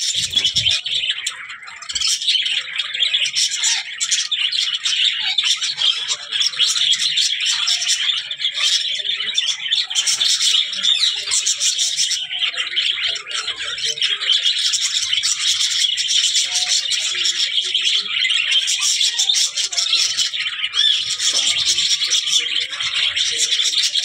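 Several budgerigars chattering continuously, a dense, high-pitched stream of chirps and warbles.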